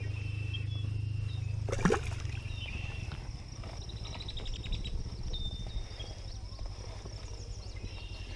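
Outdoor lake ambience: a steady high insect buzz over a low steady hum, with scattered short chirps and one brief swishing sound about two seconds in.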